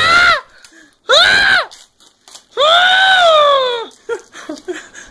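A man screaming in pain as tape is pulled off his skin: three loud, high cries that rise and fall in pitch, the last the longest.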